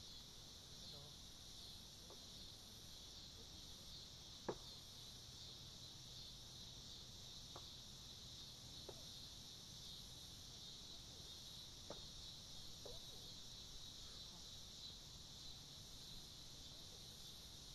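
Steady high-pitched insect chorus, a constant even buzz, with a few faint sharp clicks, the loudest about four and a half seconds in.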